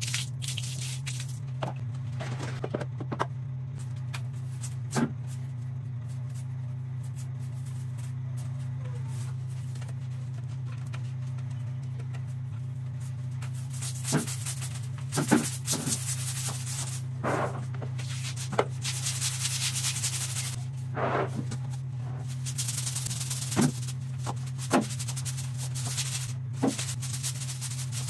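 Long-handled stiff-bristled brush scrubbing bathroom tiles in repeated rough strokes, starting about halfway through, with scattered knocks earlier and a steady low hum underneath.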